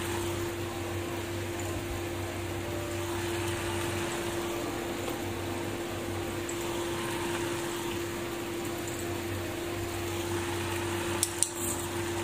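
Chopsticks clinking and scraping against a glass food container and a pan, over a steady hiss and hum. Two sharp knocks come near the end.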